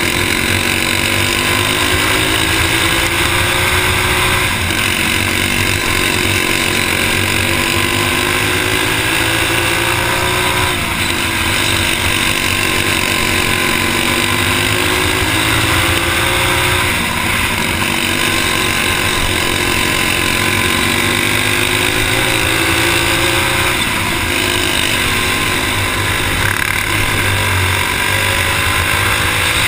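Stock four-stroke go-kart engine heard from on board at racing speed, its pitch climbing for several seconds at a time and dropping back as the throttle is lifted for the corners, several times over.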